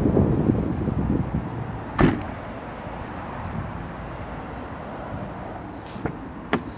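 The tailgate of a 2009 Mercedes-Benz A-Class hatchback slammed shut about two seconds in, after a rumble of wind noise. Near the end, two short clicks as the rear door handle is pulled and the door latch releases.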